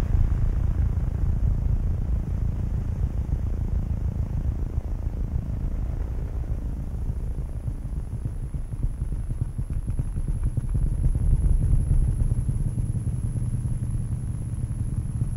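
A deep, steady rumbling drone with a throbbing texture, and a faint thin high whine coming in about seven seconds in.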